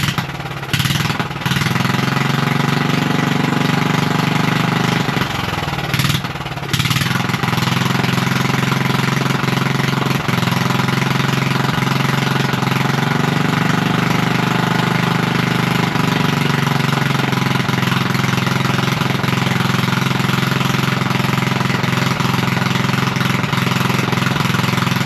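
Straight-piped ride-on lawn mower engine running loud and choppy, its revs climbing and falling back a couple of times, with brief drops in sound near the start and around six seconds in.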